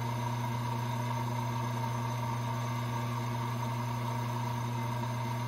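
Small lathe's electric motor running with a steady, even hum as it spins a brass rifle case in its chuck while the case neck is turned.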